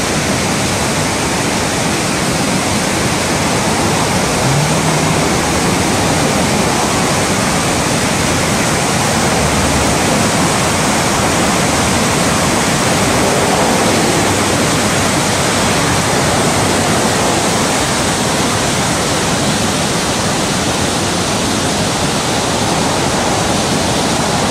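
Steady, loud rush of a river in flood churning through whitewater rapids.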